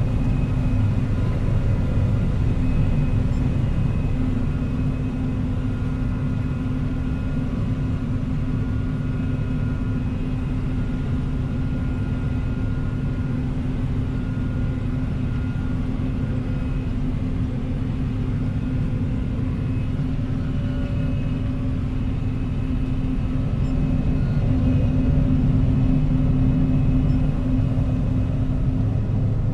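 John Deere combine harvester running steadily while cutting and threshing wheat: a continuous deep rumble with a steady hum, growing slightly louder near the end.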